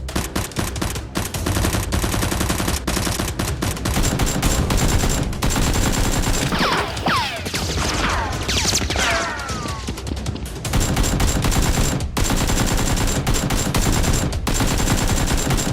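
Sustained rapid machine-gun fire, steady and unbroken, as sound effects dubbed over a toy-blaster battle. Several high falling sweeps cut through it from about six to ten seconds in.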